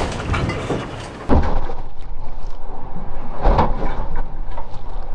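Rough seas and spray slamming against a Leopard 45 catamaran's hull and windows in about 30 knots of wind, heard from inside the cabin: a continuous rush of wind and water with heavy thuds of waves striking, one about a second in, after which it gets louder, and another about three and a half seconds in.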